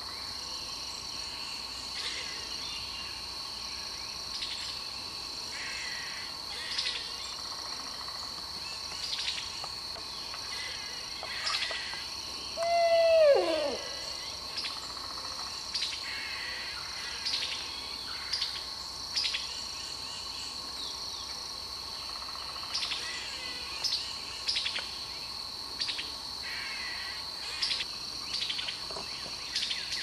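Male barred owl giving a single hoot about 13 seconds in: a held note that slides steeply down at the end. Behind it run a steady high insect drone and short calls from other birds and squirrels every second or two.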